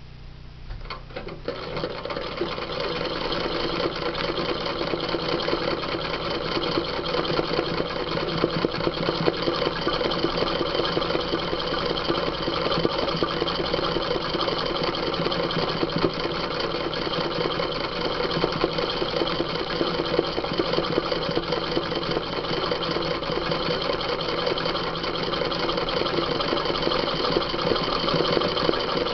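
Sewing machine starting up about a second in, then running steadily at speed, its needle stitching rapidly through hooped denim while embroidering.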